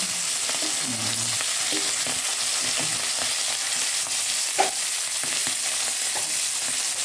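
Dried fish sizzling steadily in hot oil in a pan, with small clacks of tongs turning the fish and one sharper knock about four and a half seconds in.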